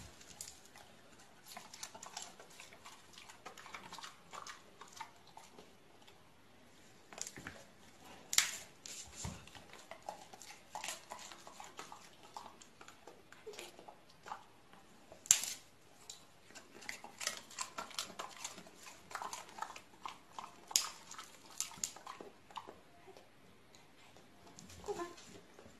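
Golden retrievers making short, soft whines amid scattered clicks and taps, the sharpest click about fifteen seconds in.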